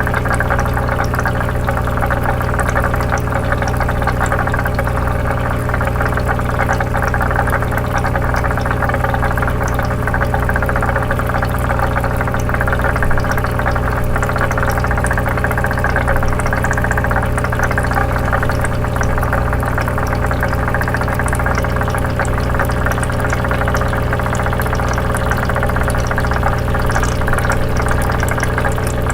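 Small electric pump of a toy bubble aquarium humming steadily while water bubbles and gurgles through the tank.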